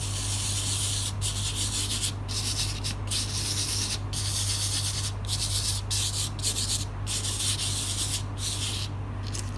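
A palm rubbing loose coloured sand over the sticky surface of a sand-painting card, pressing the grains into the adhesive: a gritty, scratchy hiss in repeated strokes about once a second with brief breaks, stopping shortly before the end.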